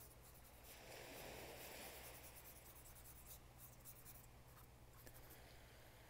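Faint scratching of a drawing tool on paper, with one longer stroke about a second in and a few small ticks.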